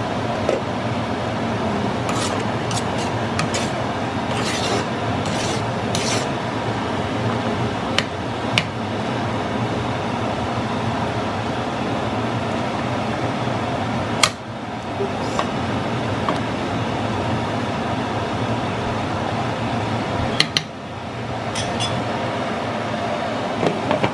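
Ladle scraping and knocking against a granite-coated cooking pot while stirring a boiling stew, over a steady hiss. A run of scrapes comes a few seconds in, then a few separate sharp clinks.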